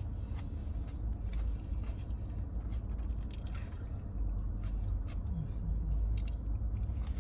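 Steady low rumble of a car's air conditioning running in the closed cabin, growing a little stronger about four seconds in. Small scattered clicks and taps of eating from a takeout plate sit over it.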